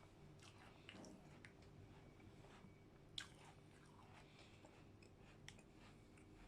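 Faint close-up eating sounds: soft chewing of ice cream and digestive biscuits, with scattered small clicks. The sharpest click comes about three seconds in.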